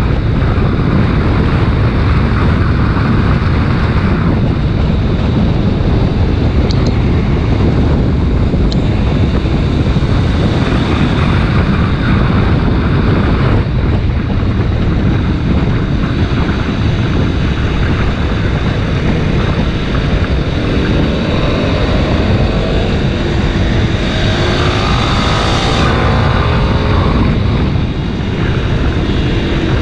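Heavy wind noise on the microphone of a Kawasaki Ninja 250 RR Mono riding at speed, its single-cylinder engine running underneath. In the second half the engine note rises in several steps.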